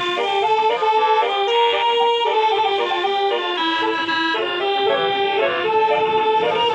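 Basuri telolet bus horn with yellow trumpets playing a tune, its reedy notes stepping up and down in a melody.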